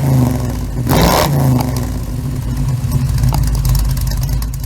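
Car engine running loudly with repeated revs, about one a second early on, then holding steady.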